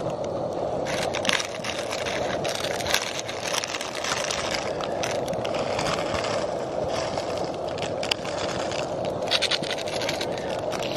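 Portable gas-canister stove burning with a steady hiss under a pot of water, with irregular crinkling and crackling as dry ramen noodles are broken up and a packet's contents are tipped into the pot.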